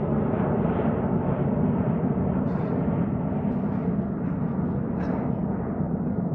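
Cessna 560 Citation Encore's twin Pratt & Whitney Canada PW535A turbofans at takeoff power, heard as a steady low rumble.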